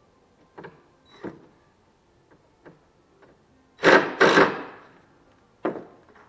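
Cordless drill driving a screw into a wooden workbench frame, in two short runs about four seconds in and a brief third spin near the end. A few light knocks of wood and tool handling come before.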